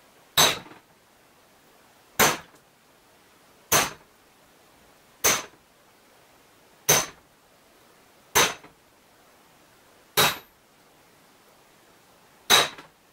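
Spring-loaded automatic center punch snapping eight times, about every one and a half to two seconds, as it marks points on a flat steel strip resting on a steel disc. Each strike is a sharp metallic click with a brief ring.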